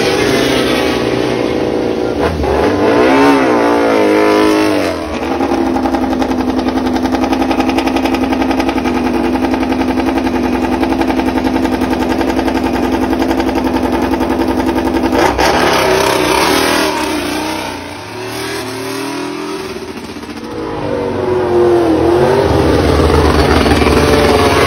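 MotoGP prototype race bikes' 1000 cc four-cylinder engines revving in the pit lane. The revs sweep up and down in the first few seconds, then hold at a steady fast idle for about ten seconds while a bike is warmed up, then rise and fall again as bikes move off, with another rev sweep near the end.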